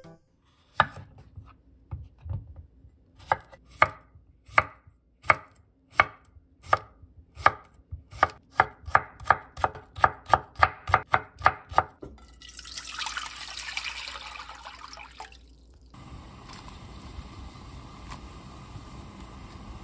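Chef's knife slicing cucumber into thin strips on a wooden cutting board: slow single strokes at first, then faster, about three a second, for some eleven seconds. After a few seconds of hiss, a pot of water boils steadily on a gas stove as noodles go in.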